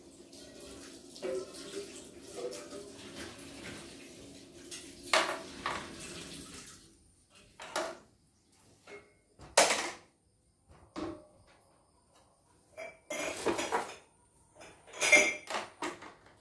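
Clicks and clatters of small hard plastic and metal parts being handled around a boxed embroidery machine, its loose pieces and power cord, as separate sharp knocks. A low hum runs underneath and stops about seven seconds in.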